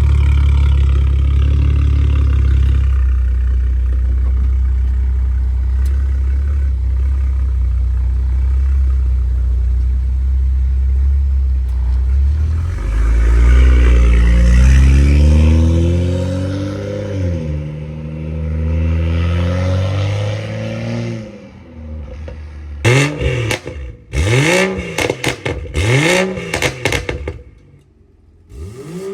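BMW 535i's turbocharged N55 inline-six running through a valved aftermarket exhaust, a deep steady drone at first. About halfway through it pulls with climbing pitch, and near the end it gives several quick revs that rise and fall, with some clattering crackle.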